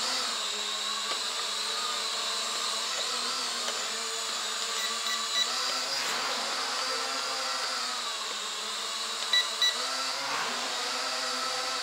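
Small toy quadcopter drone's propellers buzzing steadily in flight, the pitch bending up and down as the motors change speed for flips. Short high beeps sound about five seconds in and again near the end.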